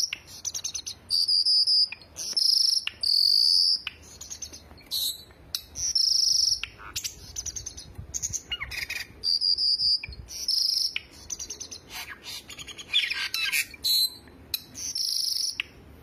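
Caged cucak birds (cucak jenggot, cucak cungkok and cucak keling) singing in a mixed song recording: loud high whistled phrases and rapid chattering trills, one after another with short gaps.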